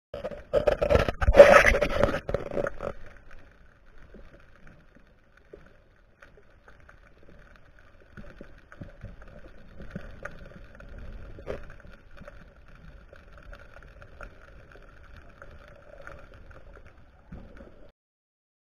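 Underwater sound through an action camera's housing: a loud, muffled rush of water noise for about the first three seconds, then a faint steady hum until it cuts off near the end.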